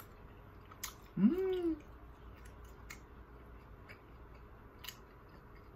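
A person eating tteokbokki: one short hummed voice sound about a second in, rising then falling in pitch, then scattered soft clicks of chewing.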